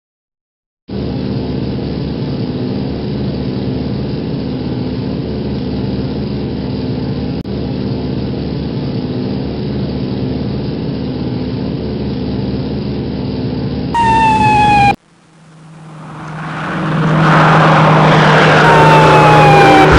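Steady drone of aircraft engines. About fourteen seconds in, a brief falling whine is heard and the sound cuts off sharply. The engine noise then swells back up, with another falling whine near the end.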